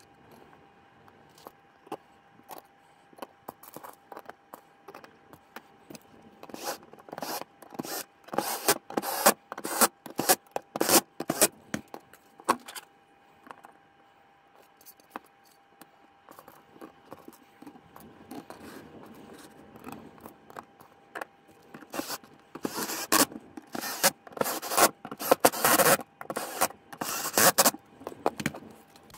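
Thin steel plates and 3D-printed plastic parts being handled and fitted together on a wooden table: repeated scraping, rubbing and sharp clicks of metal against plastic and wood, coming in two busy stretches with quieter fiddling between.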